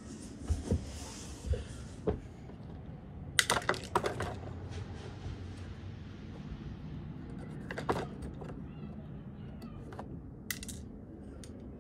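Hard plastic clicks and knocks from a toy garbage truck's loader arm and small plastic toy bins being handled by hand. There is a quick cluster of clatters about three and a half seconds in and single clicks scattered before and after.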